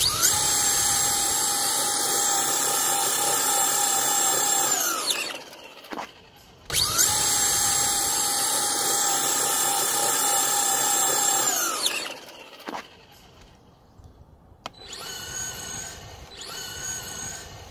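Electric RC drag car's motor whining at a steady high pitch for about five seconds with the car held in place and its tyres spinning, then winding down. This happens twice. Near the end a fainter, broken whine follows as the car runs off.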